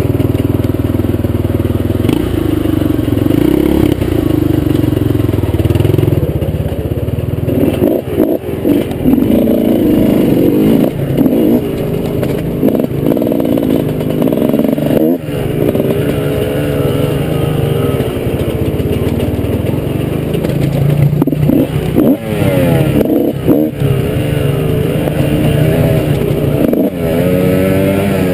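Dirt bike engine riding under changing throttle, its pitch rising and falling again and again, with a few brief drops in power as the throttle is rolled off or a gear is changed.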